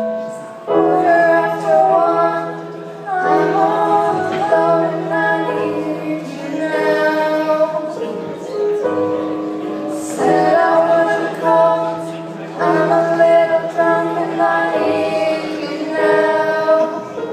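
A woman singing, accompanied by chords played on a Kawai electric stage piano, with a new chord struck every couple of seconds under the sung line.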